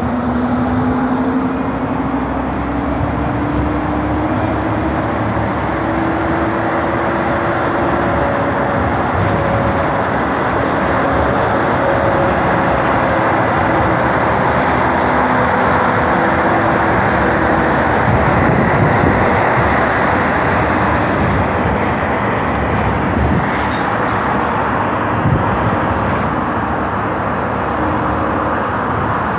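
City bus running, heard from inside: a steady engine and road drone with a whine that rises in pitch over the first several seconds as it picks up speed, then holds fairly steady.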